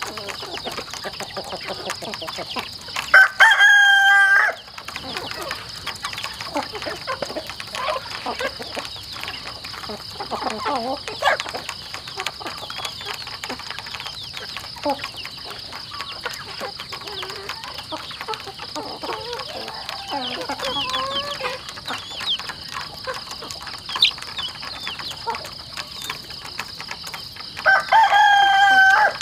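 A rooster crows twice, loudly, about three seconds in and again near the end. Between the crows a flock of feeding chickens keeps up soft, scattered clucking.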